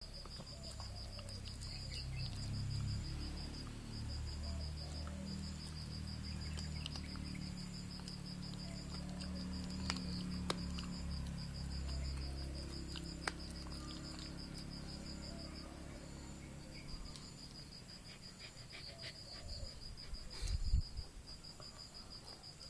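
A dog growling low and steadily while chewing, guarding its food, with an insect trilling in a fast, even pulse throughout. The growl fades out about two-thirds of the way through, and a short thump is the loudest sound near the end.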